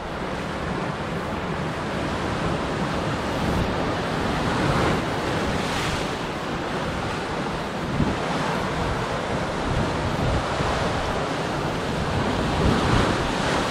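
Ocean surf washing and breaking against a rock ledge at the foot of a sea cliff, a steady rushing wash, with wind buffeting the microphone.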